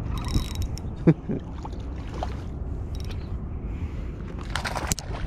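Wind rumbling on the microphone and water lapping, with a few short splashes and rattles as a hooked pinky snapper is reeled up and swung out of the water on light spinning gear; the loudest rattle comes near the end.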